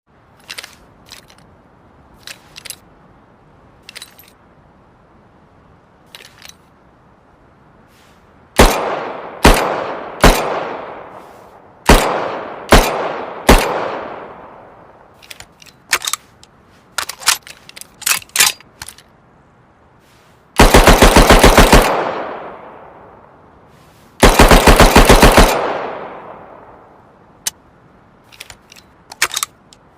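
Handmade submachine-gun sound effect: small clicks, then six single loud shots with echoing tails, more clicks, and two rapid-fire bursts about a second long each, followed by further clicks.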